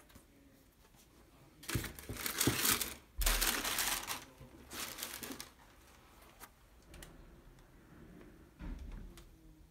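Tissue paper rustling and crinkling in a cardboard shoebox as leather sneakers are handled, in a few bursts, loudest between about two and four seconds in, with a dull thump about three seconds in.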